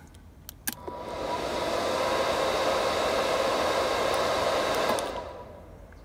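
An electric auxiliary car fan heater switched by remote: a click, then its fan spins up over about a second into a steady blowing whir with a faint whine, and spins down again near the end.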